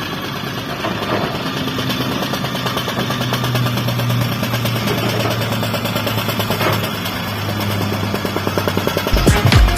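Heavy construction-machine diesel engine running steadily with a dense rattling clatter. Electronic music with a thumping beat comes in near the end.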